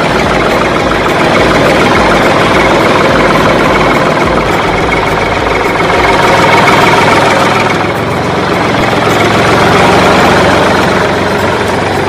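Tractor engine sound running steadily, the engine noise for a toy tractor pulling its loaded trailer, with a low chugging beat that fades out about halfway through.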